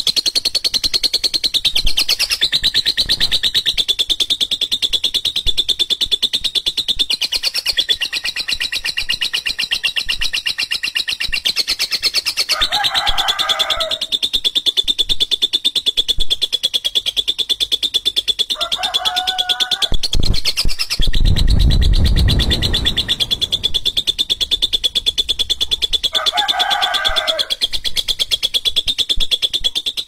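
Lovebird 'ngekek': one long, rough, high-pitched chattering trill of very rapid notes, unbroken throughout. Shorter, lower chattering calls break in three times, and there is a low rumble about two-thirds of the way through.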